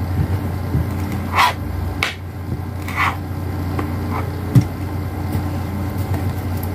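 A few scattered taps and clicks of a small utensil against a table as a child chops playdough, over a steady low hum. The sharpest click comes a little past the middle.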